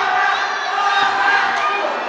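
Crowd of wrestling spectators shouting and cheering, many voices at once, easing off a little in the second half.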